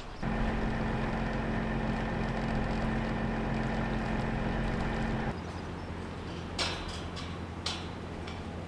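Steady mechanical hum that cuts abruptly about five seconds in to a quieter, lower hum, with a couple of light clicks near the end.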